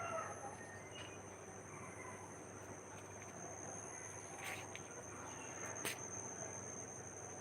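Steady high-pitched insect trill, unbroken throughout, with two faint clicks in the second half.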